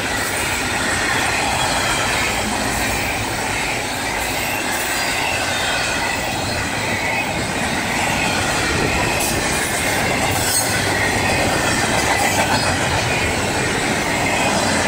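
Double-stack container freight train passing close by at speed: steady noise of steel wheels on rail, with a faint high wheel squeal and occasional clicks.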